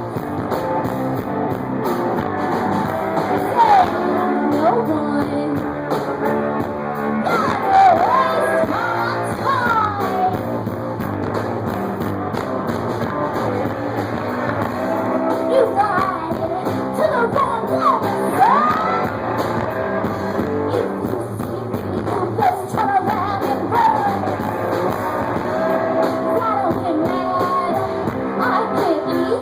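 Live punk-blues rock band playing a song: a sung vocal over guitar and drums.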